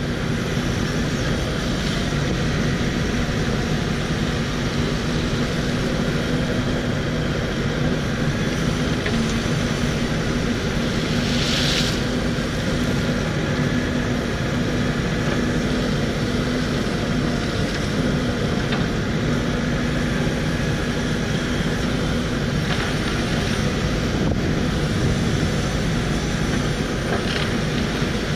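Takeuchi TB1140 excavator's diesel engine running steadily as the machine digs and spreads gravel, with a brief hiss about twelve seconds in.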